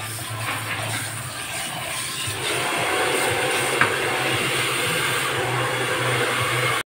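Water running from a handheld salon shampoo-basin sprayer as hair is rinsed and worked by hand, a steady rushing hiss that grows louder about two and a half seconds in.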